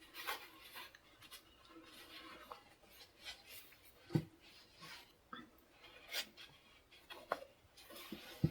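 Faint, scattered rustles and small scrapes of quilted fabric being handled while its corners are poked out with a small pointed tool, with a few sharper ticks about four, six and seven seconds in.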